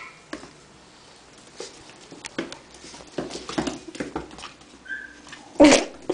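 Two puppies playing and scrabbling on a tile floor, with brief whimpers and small yips among scattered clicks of claws and paws. One loud, short sound comes near the end.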